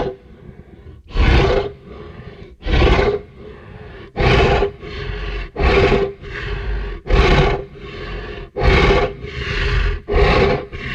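Hadrosaur call sound effect: a repeated bellowing call, about eight loud half-second calls roughly a second and a half apart, with quieter, longer calls between them, all on a steady pitch.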